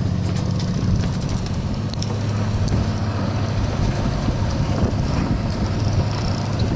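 Steady low hum of a fishing boat's motor running, with a few faint clicks.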